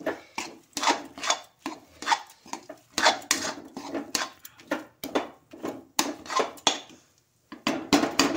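Metal spatula scraping and stirring mawa with chopped dry fruits in a metal kadhai: a steady run of scraping strokes, about two a second, with a brief pause near the end.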